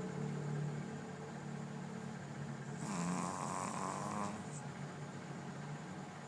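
A pet snoring in its sleep over a steady low hum, with one longer, noisier breath lasting about a second and a half starting about three seconds in.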